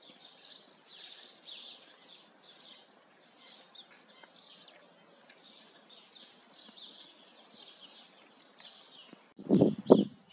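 Many small birds chirping and twittering, a steady run of short high calls. Near the end, a loud burst of low rumbling with knocks cuts in briefly.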